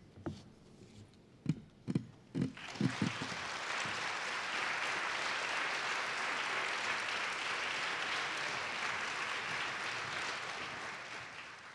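Audience applause: a few scattered low thumps, then a full round of clapping that rises about two and a half seconds in, holds steady and fades away near the end.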